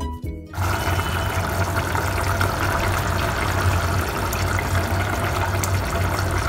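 Curry simmering in an aluminium pot on a gas stove: a steady bubbling rush over a low hum, starting as background music stops about half a second in.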